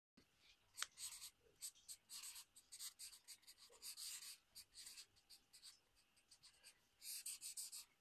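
Pen writing on paper close to the microphone: faint, short, irregular scratching strokes, with a denser run near the end.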